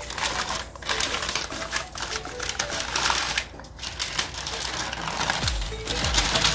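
Parchment paper crinkling and rustling as gloved hands lift it to roll a flat layer of raw ground meat into a log.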